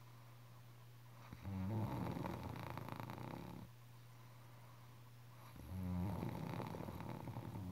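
Snoring: two long snores about four seconds apart, each lasting about two seconds and starting with a low buzzing rattle. A steady low hum runs underneath.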